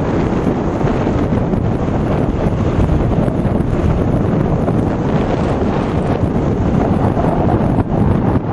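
Loud, steady wind buffeting the microphone as an electric bike rides along at speed.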